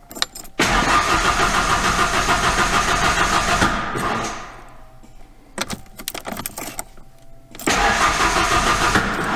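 The starter cranks the 1991 Ford Ranger's 2.3-litre four-cylinder engine, first for about three seconds and then again near the end, with the engine trying to fire now and then without catching. The no-start is taken for a bad DIS ignition module.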